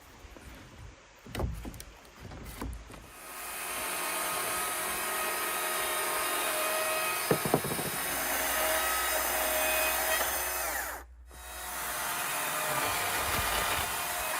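A power tool running steadily, stopping sharply about eleven seconds in and starting again, after a few knocks of wood at the start.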